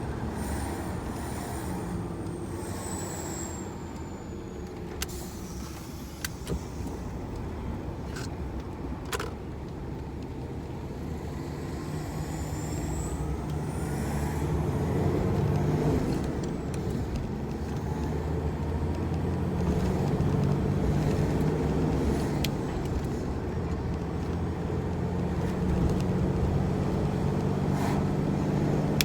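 Large tractor-trailer's diesel engine running under way, the engine note dropping and then building again as it is driven through the gears of its 16-speed manual transmission. A high whistle falls and later rises with the revs, and several sharp clicks come in the first third.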